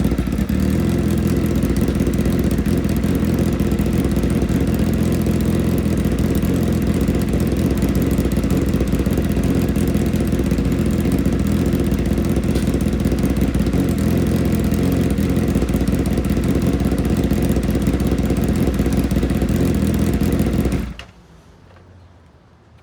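Motorcycle engine idling steadily, then stopping suddenly about twenty-one seconds in.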